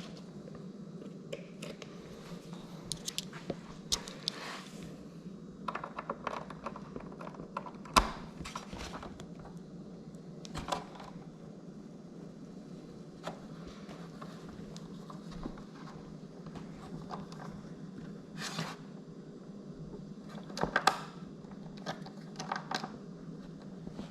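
Scattered small clicks, taps and short scrapes of hands working with a screwdriver, Torx bits and plastic parts, with one sharper knock a bit under halfway through and a cluster of clicks near the end, over a steady low hum.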